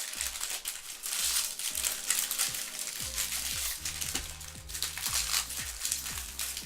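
Foil wrapper of a pack of baseball trading cards crinkling and crackling as the pack is torn open and crumpled, over background music with a steady bass beat.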